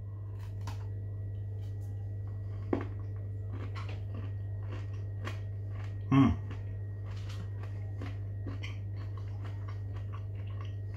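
A man chewing a mouthful of Toblerone milk chocolate with crunchy salted caramelised almonds, a run of small crunching clicks, over a steady low hum. About six seconds in he gives a short "mm" with his voice.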